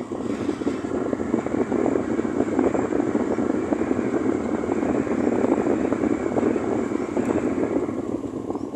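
Wind blowing in a gust: a rough rushing noise that builds, holds, and eases off near the end.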